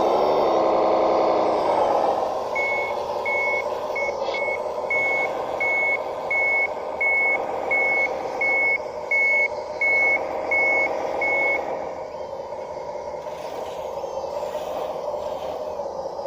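1:12 scale RC bulldozer running with a steady mechanical drone that shifts pitch at the start. Its reversing alarm beeps about fourteen times, a little faster than once a second, starting a few seconds in and stopping well before the end.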